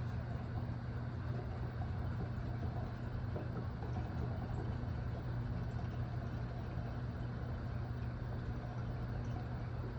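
An engine idling steadily, a constant low hum that does not change pitch.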